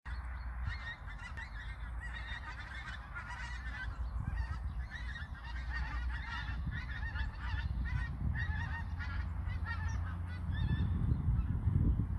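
A large flock of wild geese flying overhead, many birds honking at once in a continuous overlapping chorus. A low rumble sits underneath and grows louder near the end.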